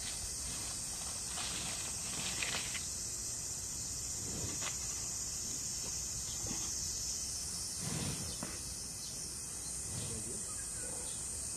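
Steady high outdoor hiss with a few faint, brief rustles and soft knocks.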